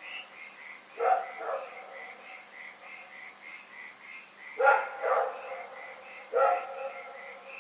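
Dog barking: two barks about a second in, two more around the five-second mark, and a single bark near the end. Behind them runs a steady high pulsing, about three pulses a second.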